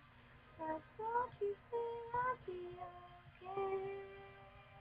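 A girl's voice singing a tune without words: a few short notes that slide up and down, then a long held note near the end.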